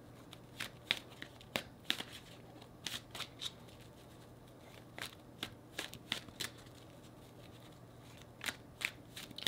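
A deck of tarot cards being shuffled by hand: quiet, irregular snaps and slaps of cards in small clusters with short pauses between.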